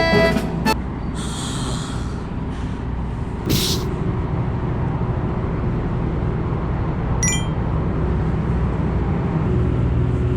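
Steady low rumble of a large vehicle's engine, with two short hisses of air in the first few seconds and a brief high tone a little after the middle. Background music stops about half a second in.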